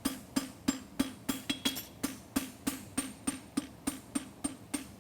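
Farrier's hammer striking a hot steel bar shoe on an anvil in a steady rhythm of about four blows a second, each with a short metallic ring, as the heel scarves are pulled together for forge welding.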